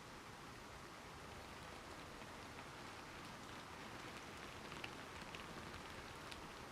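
Faint, steady rain, with a few light drop-like ticks over the last few seconds.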